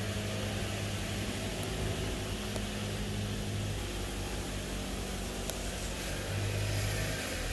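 Steady low hum over a constant hiss, with a faint click about five and a half seconds in.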